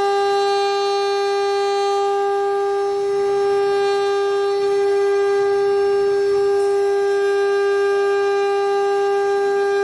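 3 kW water-cooled CNC router spindle running with a loud, steady high-pitched whine as its cutter mills a wooden blank turning on the rotary axis.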